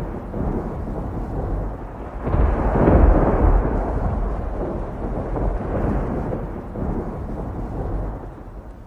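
Deep rolling rumble, like thunder, swelling to its loudest about three seconds in and dying away near the end.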